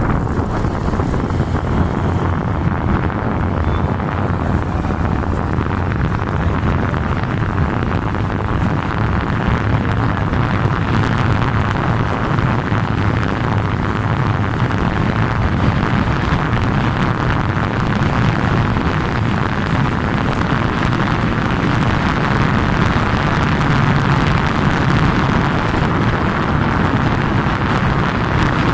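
Steady wind rushing over the microphone, with the low drone of the vehicle and its tyres riding along the road underneath.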